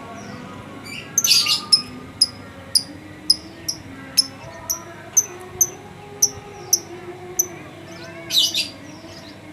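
Lovebird calling: a run of sharp, high chirps about two a second, with louder, harsher screeches near the start and near the end.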